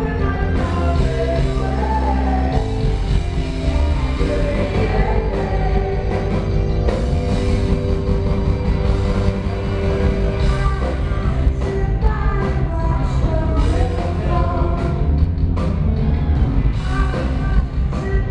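Live rock band playing, with a woman singing lead over drums, bass and electric guitar.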